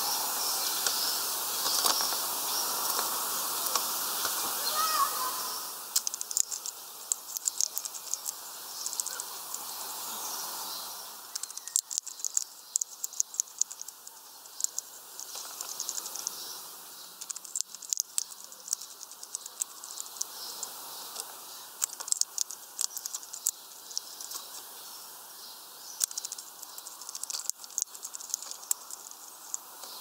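Birds at a wooden seed feeder pecking and cracking seeds: a run of sharp, irregular clicks and taps, several a second, starting about six seconds in. Faint birdsong comes from farther off during the first few seconds.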